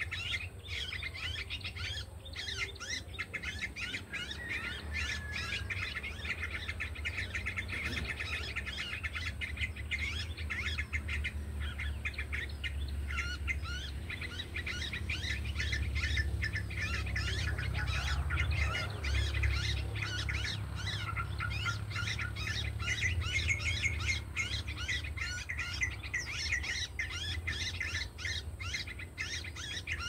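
Small songbirds chirping continuously in a dense, rapid chatter of short high calls, over a steady low background rumble.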